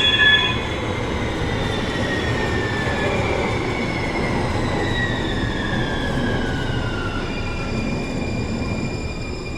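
Muni Metro light-rail train in the underground station, its wheels rumbling on the rails while several high whining tones fall slowly and steadily in pitch as the train slows.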